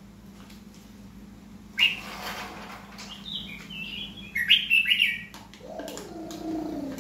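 Red-whiskered bulbul singing in its cage: a short run of high, warbled notes about three to five seconds in, preceded by a sudden sharp noise about two seconds in, over a steady low hum.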